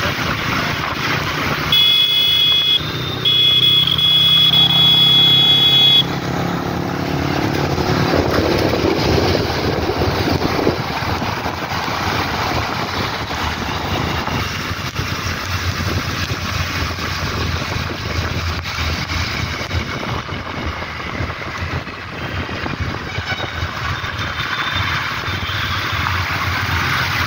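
Motorcycle riding on a wet road, with steady wind and tyre noise over the running engine. About two seconds in a vehicle horn sounds for roughly four seconds, with a brief break. Near the end water splashes as the bike rides into a flooded stretch.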